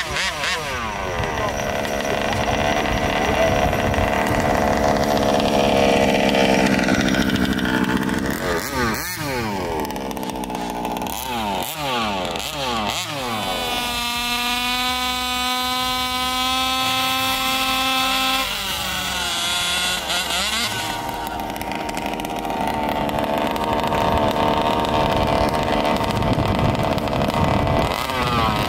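Small two-stroke gas engines of 1/5-scale RC Baja cars running and revving. They sweep up and down in pitch, give several quick throttle blips about a third of the way in, hold one steady high pitch for a few seconds around the middle, then rev on again.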